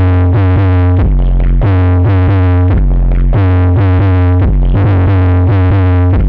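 Loud electronic dance music: heavy bass notes under repeated synthesizer chord stabs.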